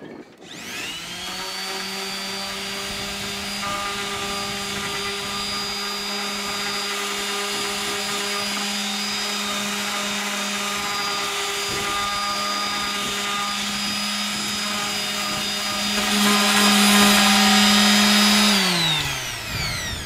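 Electric random orbital sander starting up and running steadily as it sands the rough top edges of a wooden post, getting louder for a couple of seconds near the end. It is then switched off and spins down with a falling whine.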